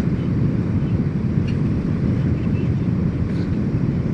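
Private jet cabin noise in flight: a steady low rumble.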